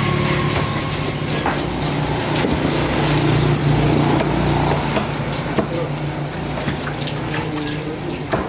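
Cleaver cutting tuna on a thick wooden chopping block, with a few sharp knocks as the blade strikes the wood. Underneath are a steady low hum and background voices.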